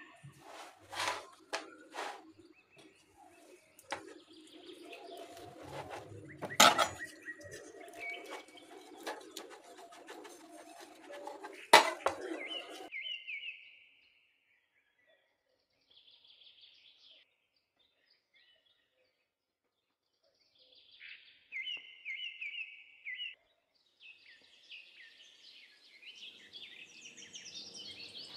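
Birds chirping in short repeated runs of chirps through the second half. Before that, rustling and clicking with two sharp, loud knocks, about six and twelve seconds in, which stops suddenly about thirteen seconds in.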